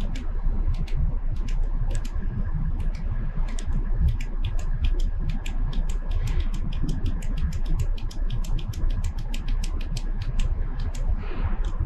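Rapid run of sharp clicks as the CNC saw's head is jogged in small steps to bring the dial indicator on the arbor to zero: a few scattered clicks at first, then about five a second from a few seconds in until near the end. A low steady machine hum runs underneath.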